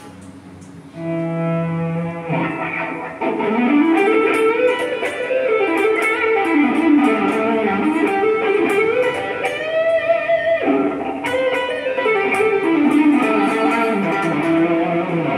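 Ibanez RGA32 electric guitar with a distorted rock tone: a held chord about a second in, then fast lead runs moving up and down, a higher note held near the middle, a short break, and more runs.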